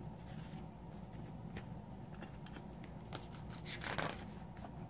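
A picture book's page being turned by hand: light paper clicks and rustles, then a short swish of the page about four seconds in, over a faint steady hum.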